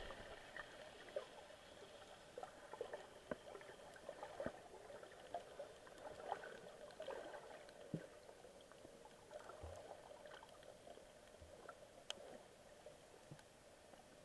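Faint underwater ambience picked up by a submerged camera: irregular small clicks and pops over a low watery hiss.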